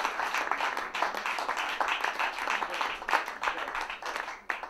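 Audience applauding: many hands clapping at once, dying away near the end.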